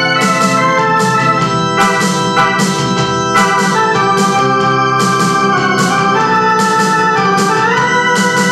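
Portable electronic keyboard played with an organ voice: sustained chords and melody over a steady beat of about two hits a second, with the notes gliding upward near the end.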